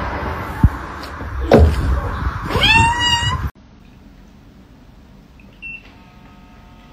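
A sharp thump, then a cat meows once, a single call that rises in pitch and then holds, about two and a half seconds in. The sound cuts off suddenly near the middle, leaving quiet room tone.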